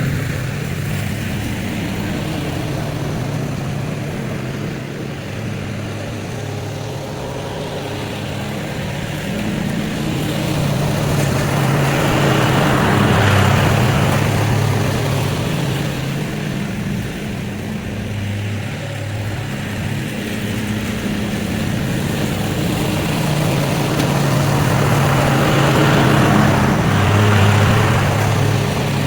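Small gasoline yard-equipment engine running steadily under load, growing louder twice, about halfway through and near the end, then easing off.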